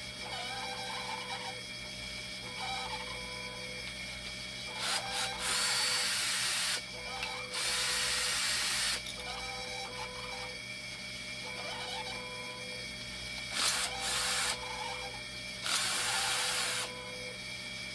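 Power screwdriver run in four short bursts of one to two seconds each, over a steady high tone in the background.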